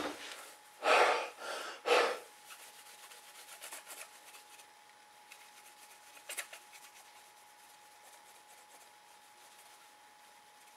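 Two short rubbing noises near the start, then a faint steady whine with scattered soft clicks as a Denon DVD player's drive reads a disc during a test after repair.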